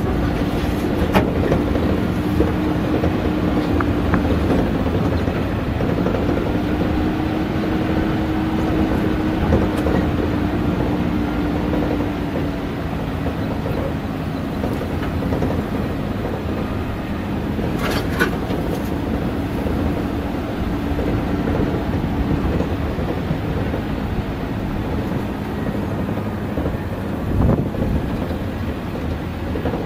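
Off-road vehicle driving slowly over a rough dirt track: a steady engine drone under the rattle and jolting of the body over the ruts, with a few sharp knocks.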